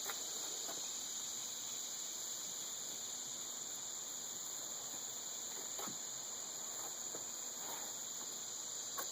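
Steady high-pitched insect chorus of crickets, an unbroken trill with a couple of faint ticks.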